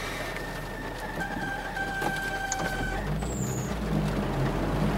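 Nissan 350Z's serpentine belt squealing, a thin steady high-pitched tone for about the first three seconds: the belt is slipping after being soaked in deep floodwater. Then the engine's low drone swells.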